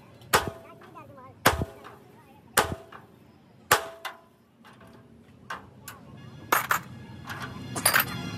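Hammer striking metal: four heavy blows about a second apart, each ringing briefly, then several lighter knocks and clicks in the second half.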